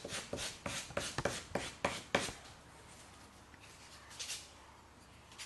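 Wooden spoon's end being sanded by hand on a sheet of sandpaper laid flat on a bench: quick rasping strokes, about four a second, then fainter rubbing after about two seconds.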